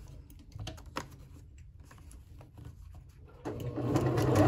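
A few faint clicks and rustles of the paper foundation being set under the presser foot, then, near the end, a sewing machine starts up and runs steadily, stitching through the paper and fabric.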